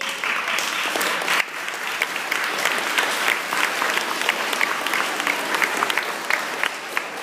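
Audience applause that breaks out suddenly and goes on as dense, steady clapping, easing slightly near the end.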